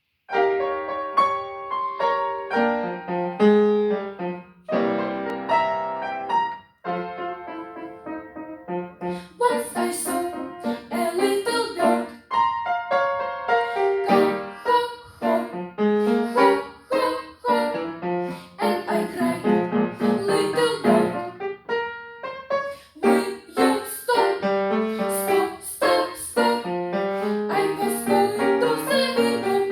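Piano playing an introduction, then a solo voice singing a song with piano accompaniment, starting about nine seconds in.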